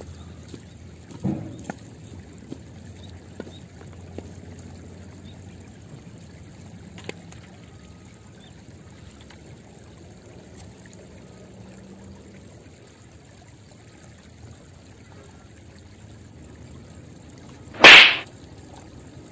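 Steady, faint riverside background with a few small clicks. Near the end comes one sudden, very loud burst of noise lasting about a third of a second, as the rod is swept up to strike a tilapia and pull it from the water.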